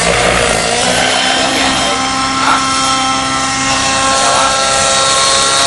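Align T-Rex 700 Nitro radio-controlled helicopter in flight, its glow engine and rotor blades running with a steady whine that settles about a second in.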